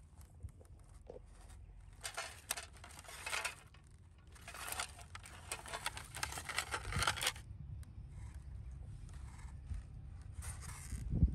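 Several bursts of rough scraping and tearing noise, a short one about two seconds in, a longer one of about three seconds in the middle and a brief one near the end, over a low steady rumble.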